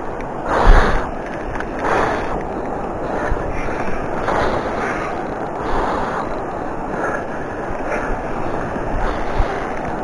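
Rushing noise of flowing river water and wind buffeting a rod-mounted camera's microphone, swelling and easing in gusts, with one loud thump about a second in.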